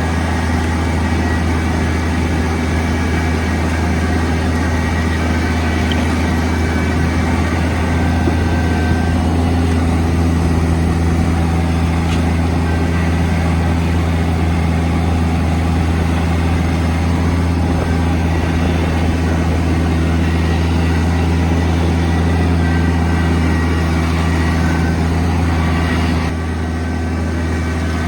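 Tractor engine running steadily while clearing snow, with a slight drop in level near the end.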